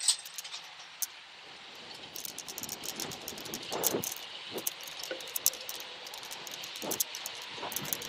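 Wind noise on an Insta360 ONE R action camera's taped-over microphone, with its wind noise reduction on, as the camera moves along the track: a steady hiss with a few low gusty swells, and many small rattles and clicks that grow busier after about two seconds.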